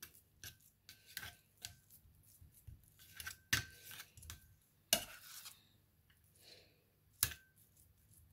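Metal spoon scraping and clinking against a metal ring mould on a plate while filling is pressed in: irregular short scrapes and clicks, some with a faint metallic ring, the sharpest a little past the middle and near the end.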